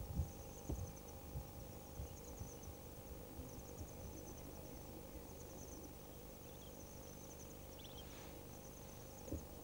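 Faint high-pitched insect trilling, coming in repeated pulsing runs, with a few low bumps in the first couple of seconds.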